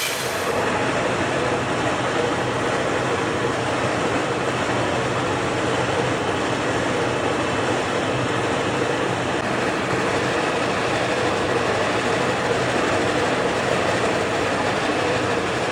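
DIP 500 heavy engine lathe running steadily, an even machine noise with a constant hum that does not change.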